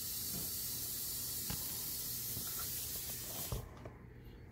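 Ball python hissing: one long, steady exhaled hiss, a defensive warning from a snake ready to strike, that stops suddenly about three and a half seconds in.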